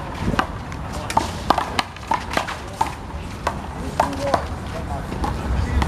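Handball rally: a small rubber handball smacked by bare hands and bouncing off the wall and pavement in a quick, irregular run of sharp slaps, about a dozen strikes.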